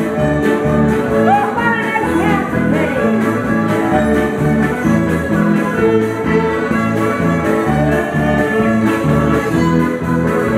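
Fiddle playing a lively Ukrainian novelty tune over a steady band accompaniment with a bass line, with sliding swoops up and down in pitch about a second in and again near the end.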